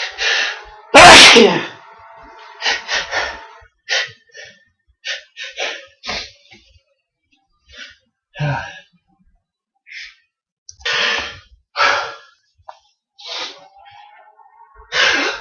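A person sneezing loudly once about a second in, right after a sharp intake of breath, in a natural fit of sneezes. Short breaths and sniffs follow, and near the end a quick intake of breath begins the next sneeze.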